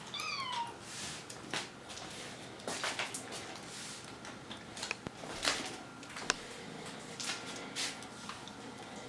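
A Bengal kitten gives one high meow that falls in pitch, about half a second long, right at the start, followed by scattered short scuffling and rustling noises.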